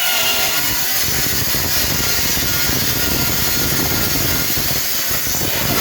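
A power tool running steadily and loudly, working on the washing machine's metal, with a faint whine that slides down in pitch as it starts.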